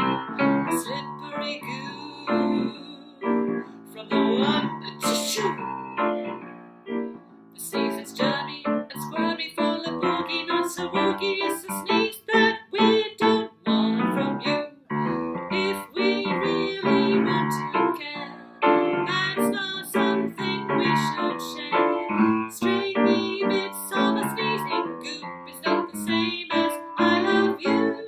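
A woman singing a jazzy children's song with piano accompaniment.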